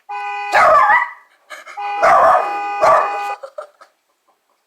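A car horn sound effect played back as two long honks, the second about one and a half seconds long. A dog barks loudly at it, about three barks over the honks.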